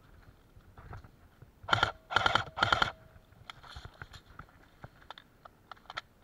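Airsoft rifle firing three short bursts in quick succession about two seconds in. Afterwards come light clicks and rustling as the player moves through the undergrowth.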